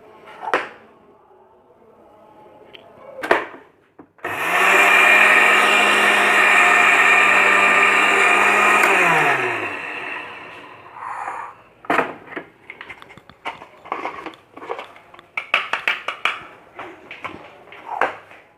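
Electric mixer grinder running for about five seconds to grind roasted flaxseed coarsely, its motor pitch falling as it winds down. A few knocks come before it, and a run of small clicks and knocks after it as the jar is handled.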